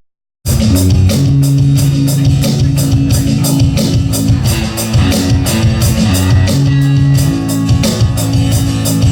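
Live church praise band playing an instrumental passage of a rock worship song: drum kit keeping a steady beat with cymbals, bass and electric guitar. It comes in abruptly after a brief silence at the start.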